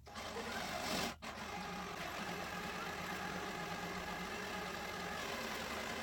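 Electric drill motor running steadily with a 5/16-inch metal bit, boring a mounting hole, with a brief stop about a second in.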